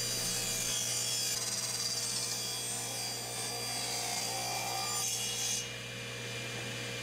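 Table saw ripping a cherry board lengthwise to a narrow strip, the blade cutting steadily through the wood. About five and a half seconds in the cut ends and the sound drops to the blade spinning free.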